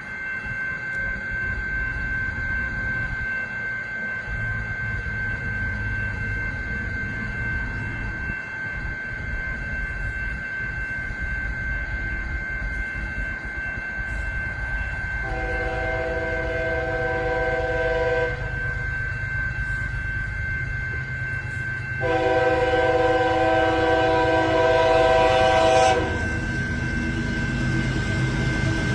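Diesel freight train running with a low rumble while its locomotive horn blows two long blasts, the second longer and louder, about halfway through and near the end.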